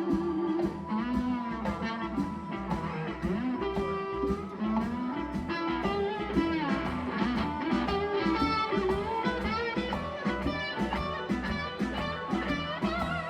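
Live blues-rock band playing: an electric guitar lead with notes bending up and down over a steady, even drum beat and bass.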